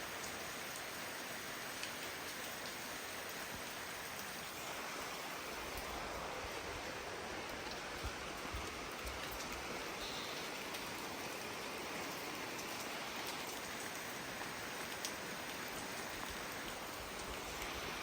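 Steady rain falling, an even hiss with a few scattered drop ticks; a low rumble joins about six seconds in.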